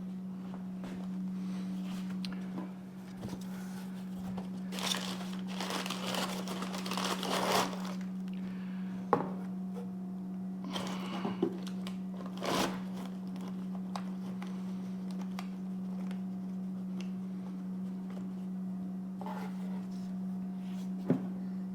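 Packing material crinkling and rustling in a few bursts, with some light knocks, as parts are packed into a cardboard box. A steady low hum runs underneath.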